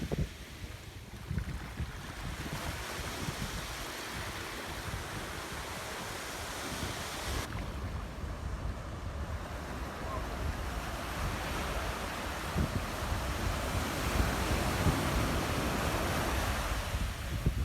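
Surf breaking and washing up a sandy beach, a steady hiss that swells louder in the second half. Wind buffets the microphone with low rumbling gusts at the start and near the end.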